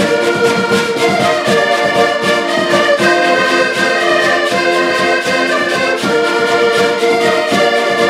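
Four button accordions playing a tune together: reedy sustained chords and melody over a steady rhythmic bass pulse.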